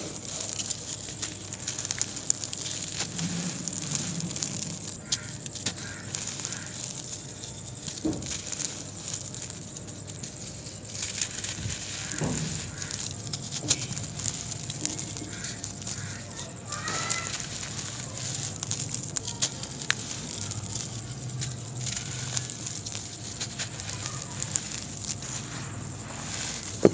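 Dry sand-and-cement balls being crushed by hand: gritty crunching and crackling, with powder sifting through the fingers.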